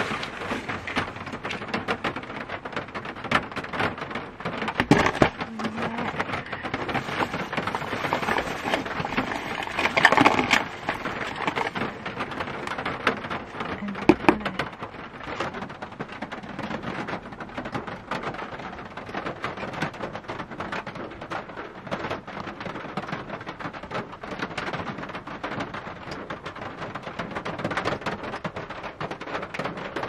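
Heavy rain pattering on the roof of a camper van, a dense steady crackle of drops. A few louder knocks or rustles stand out, the loudest about ten seconds in.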